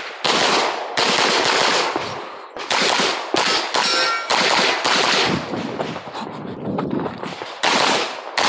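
Handgun with a red-dot sight fired in rapid strings of shots during a timed USPSA stage run, with short pauses between strings as the shooter moves between positions.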